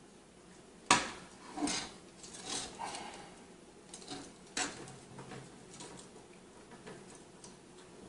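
Clatter of a metal-finned GPU heatsink being handled and fitted by hand: a sharp knock about a second in, then short rattles and scrapes, another click just past halfway, and lighter ticks after.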